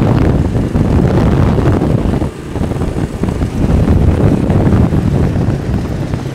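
Wind buffeting the microphone on a moving motorcycle, a heavy rough rumble over the engine and passing traffic, easing briefly about two seconds in.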